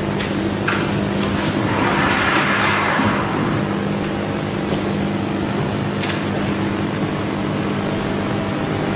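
Steady electrical hum and hiss of a hushed pool hall, swelling briefly about two seconds in. A faint click about six seconds in is the cue striking the ball.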